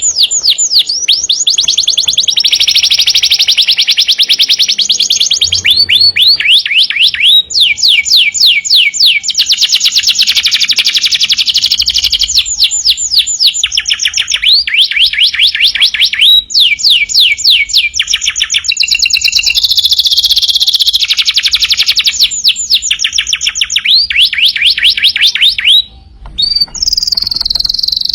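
Domestic canary singing without pause: a long run of rapid, high trills, each phrase a quick string of repeated chirps before it switches to the next roll, with a brief break near the end.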